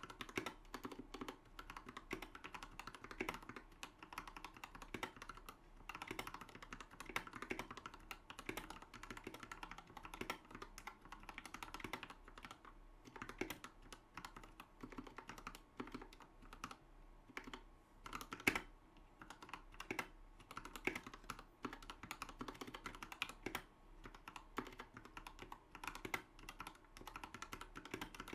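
Typing on a GK64XS 60% mechanical keyboard fitted with hand-lubed Gateron Black linear switches and PBT keycaps: a steady, fast run of keystroke clacks, with one sharper hit about two-thirds of the way in.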